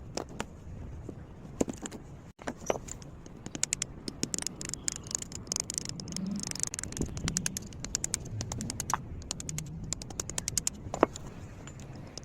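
Small metal parts clinking and rattling as they are handled, with many short sharp clicks, some in quick runs, over a low steady background.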